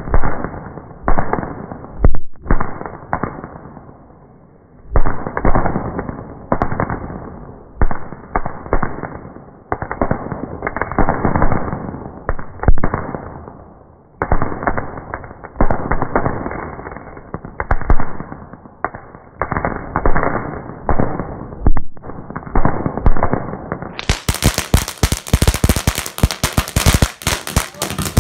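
Fireworks going off: repeated loud bangs that come in clusters with short gaps between them. Near the end the bangs give way to a fast, dense run of crackling pops like a string of firecrackers.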